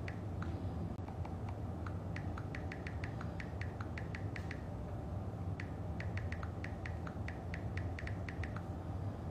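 Irregular light clicking, in quick runs of several a second, over a steady low hum.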